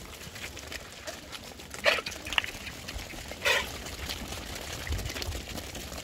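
A herd of Sojat goats on the move, with a low rumble underneath and two short, loud animal calls about two and three and a half seconds in.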